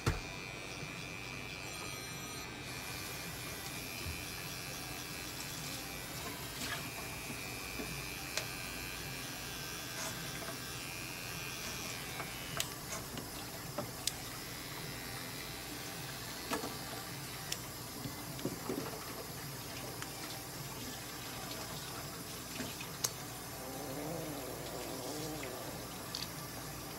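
Small cordless pet clipper buzzing in short runs as it trims the fur between a cat's paw pads, with a thin whine that comes and goes. From about halfway on, scattered sharp clicks.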